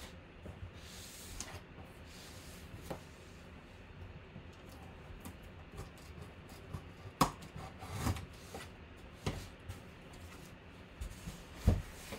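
Utility knife slitting the packing tape along the seam of a cardboard box, with faint rubbing and scraping. A few sharp knocks and taps of the box being handled come in the second half.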